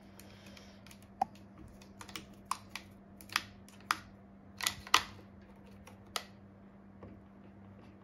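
Light irregular clicks and taps, about a dozen over five seconds, of small parts and tools being handled on an opened sewing machine during oiling and reassembly, then stopping near the end. A faint steady low hum sits underneath.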